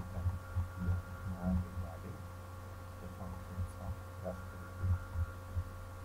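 Steady electrical hum, with soft irregular low thumps through it.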